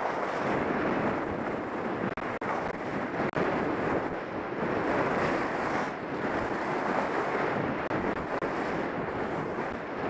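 Wind rushing over a helmet camera's microphone as the skier runs down a groomed slope at speed, together with the hiss of skis on packed snow, swelling and fading every second or two through the turns.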